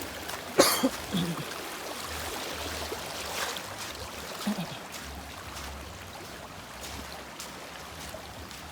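River water running steadily, with one sharp knock about half a second in.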